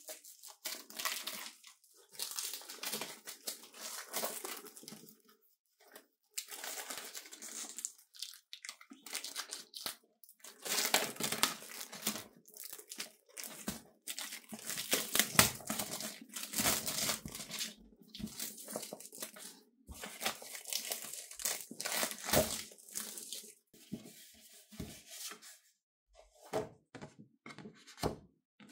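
Packaging being torn open and crinkled by hand, in repeated bursts of tearing and rustling with short pauses between.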